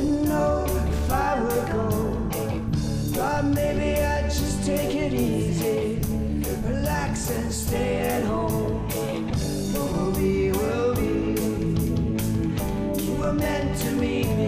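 Rock band music with a singing voice over a steady drum beat.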